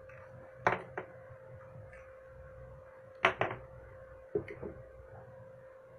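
Light clacks and knocks of small kitchenware being handled and set down on a counter: two near the start, a double knock past the middle and a quick cluster soon after, over a faint steady hum.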